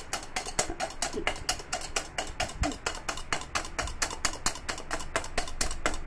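Wire whisk beating cake batter by hand in a stainless steel bowl, its wires clicking against the metal in a fast, even rhythm of about six strokes a second.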